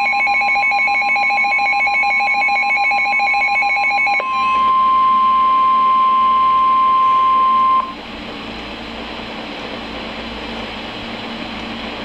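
Emergency alert tones off NOAA Weather Radio: a rapidly pulsing two-tone warble for about four seconds, then the single steady 1050 Hz warning alarm tone for about three and a half seconds. After that the tone cuts off and only the radio's hiss and a faint hum remain.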